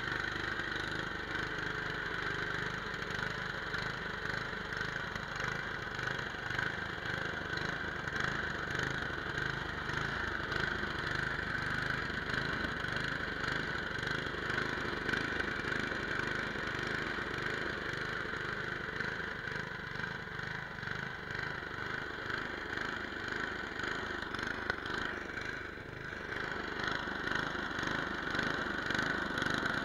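Remote-controlled two-stage gas snowblower engine running steadily close to the microphone as the machine clears snow.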